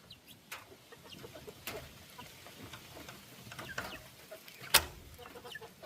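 Backyard chickens clucking with scattered short calls around feed. A sharp knock comes near the end.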